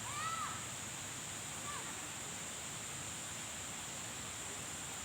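Steady hiss of rain starting to fall, under a steady high-pitched insect drone. A bird calls once right at the start, a short note that rises and falls, and more faintly again a little under two seconds in.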